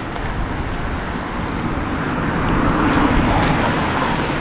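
Road traffic: a vehicle passing close, its engine and tyre noise swelling to a peak about three seconds in, with a thin high whine near the loudest point.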